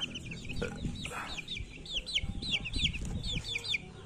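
One-month-old Pama chicks peeping: a rapid run of short, high chirps, each falling in pitch, several a second.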